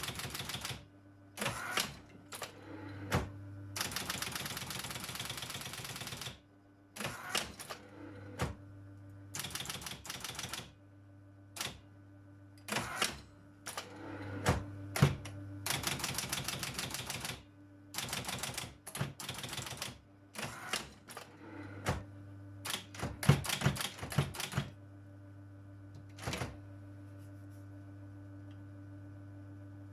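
Robotron 202 typewriter typing: clusters of sharp key strikes and clacks, with two longer rattling runs of about two seconds each. A steady low hum runs underneath.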